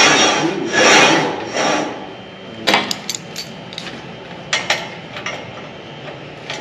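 A long metal bar sliding and scraping three times across a saw's steel table, followed by a string of sharp metal clanks as it is shifted and set in place.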